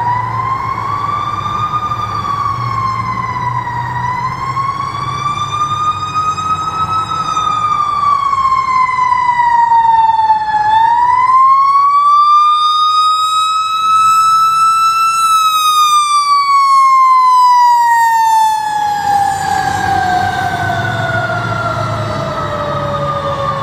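Fire engine's siren wailing in slow rising and falling sweeps, then winding down in one long steady fall in pitch over the last several seconds, with a low rumble underneath.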